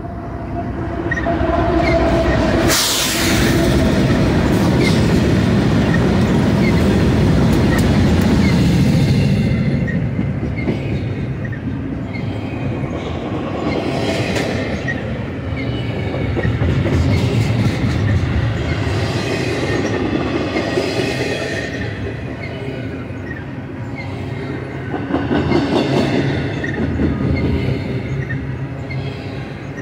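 A BNSF intermodal train's lead consist of GE diesel locomotives (ES44C4, Dash-9-44CWs, ES44DC) passing close by, loudest for the first several seconds. About ten seconds in, a long line of double-stack container well cars follows, rolling past with the wheel noise swelling and fading as the cars go by.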